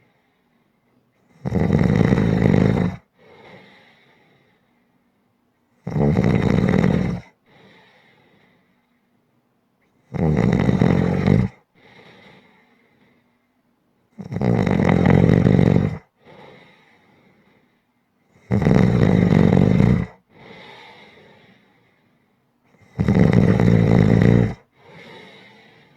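A person snoring loudly and evenly: six rasping inhaled snores about every four seconds, each followed by a much softer breath out.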